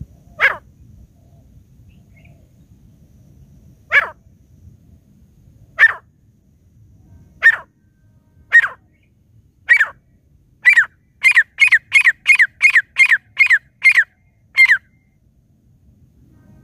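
Grey francolin (teetar) calling: sixteen loud, sharp notes, each dropping slightly in pitch, a second or more apart at first, then quickening to about three a second before stopping near the end.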